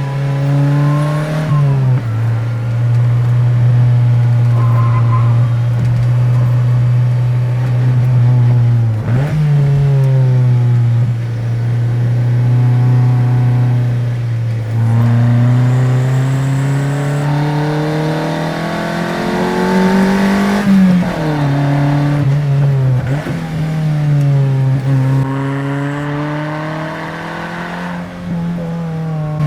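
Toyota Corolla FX-GT's 4A-GE 16-valve twin-cam four-cylinder engine pulling through the gears on the road. The revs climb and then drop sharply at each gear change, several times, with one long climb in the middle of the run.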